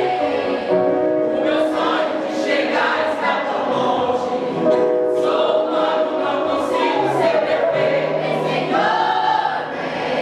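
A vocal group singing a Portuguese gospel medley in several voices at once, holding sustained notes with crisp sibilant consonants.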